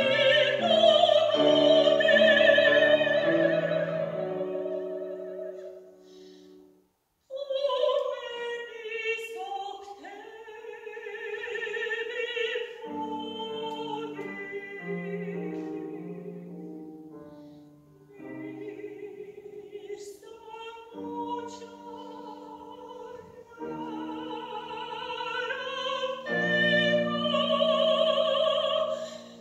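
Soprano singing an art song with wide vibrato over grand piano accompaniment. About six seconds in, the music fades to a brief silence, then the voice comes back in with the piano.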